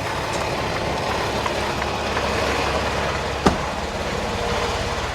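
Semi-truck diesel engine idling steadily, with a single sharp click about three and a half seconds in.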